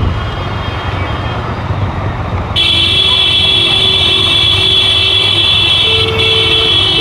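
Motorcycle engine running at low speed under vehicle horns honking; one horn is held in a long continuous blast from about two and a half seconds in, with lower horn notes coming and going over it.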